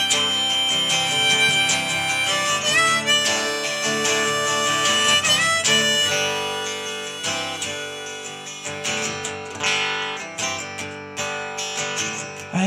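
Harmonica solo with held notes and short bends over a strummed acoustic guitar in a folk-rock song's instrumental break. The harmonica thins out about halfway through, leaving mostly the guitar strumming.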